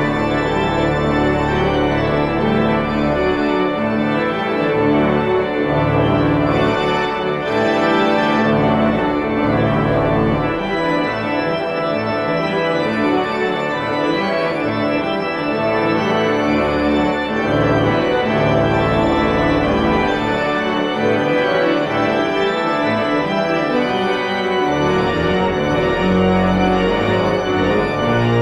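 Organ playing the closing postlude in sustained full chords, the notes held and changing slowly.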